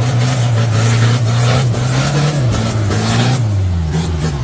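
Lifted pickup truck's engine held at high revs while it climbs a steep rutted dirt track, the engine note steady at first, then dropping and climbing again past the middle.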